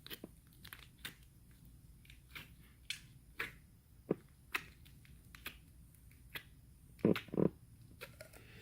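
Glittery slime being handled and pressed, making small irregular sticky clicks and pops, with two louder soft thumps about seven seconds in.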